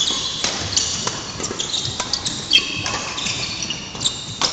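Badminton doubles rally: sharp racket hits on the shuttlecock among short high squeaks of court shoes and thudding footsteps on the wooden floor.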